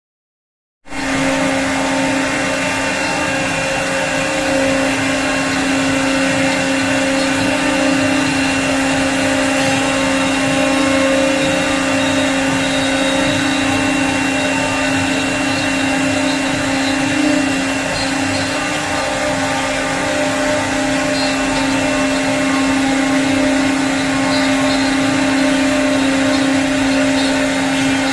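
CNC wood router carving a 3D relief in wood, its spindle running at a steady speed: a constant whine over a dense hiss of cutting. It starts abruptly about a second in.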